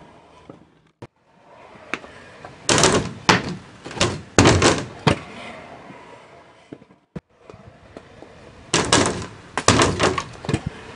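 Skateboard on a wooden quarter-pipe ramp and concrete: wheels rolling, with the deck and wheels knocking and slapping down in two bursts of loud clacks, one a few seconds in and one near the end.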